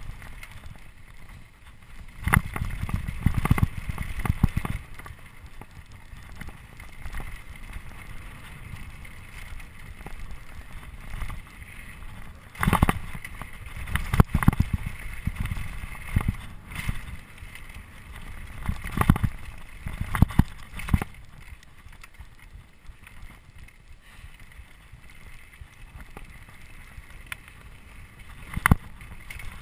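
Trek Remedy 8 full-suspension mountain bike descending a rocky downhill trail at speed: tyres rumbling and crunching over loose stones, with sharp knocks and clatter from the bike striking rocks, several louder ones spread through, and wind noise on the microphone.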